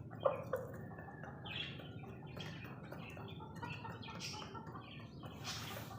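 A flock of kept birds chirping, many short overlapping calls.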